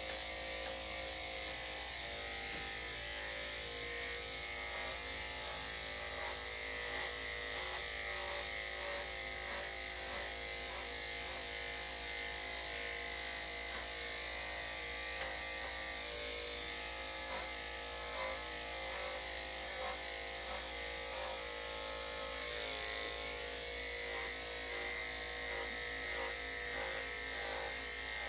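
Electric dog grooming clippers with a #5 blade running steadily, buzzing as they clip a dog's coat.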